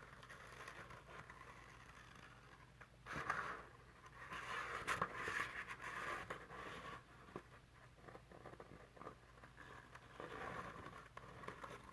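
Scissors cutting through folded paper, with the paper rustling and scraping in faint, irregular spurts.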